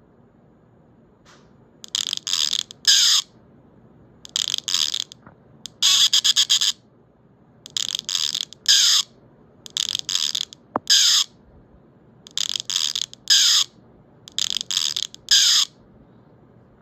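High-pitched electronic chirping from a loudspeaker: about seven short clusters of rapid pulses, roughly every two seconds, each with a quick falling sweep.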